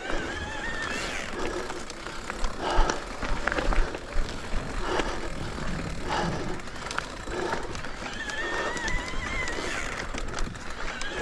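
Mountain bike rolling over a rocky trail, the tyres and frame clattering over stones, with low wind rumble on the microphone. A high, wavering freewheel buzz of the rear hub coasting is heard at the start and again near the end.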